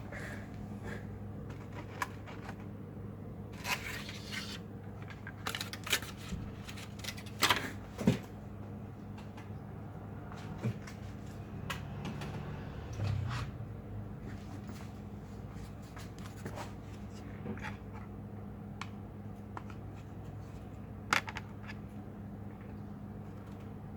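Hands working on a laptop during disassembly: scattered plastic clicks, taps and short handling rustles, with a cluster of louder clicks a few seconds in and a single sharp click near the end. A steady low hum runs underneath.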